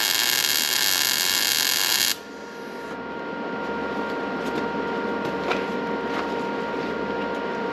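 Wire-feed welding arc crackling and hissing steadily as a bead is laid on the snowblower's steel frame, cutting off abruptly about two seconds in. A steady hum with a couple of faint ticks follows.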